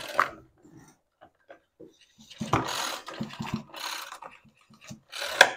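Handling noise from a small two-stroke trimmer engine being moved and turned over by hand on a workbench: irregular plastic-and-metal knocks, rattles and scrapes, busiest in the middle, with a sharp clatter near the end.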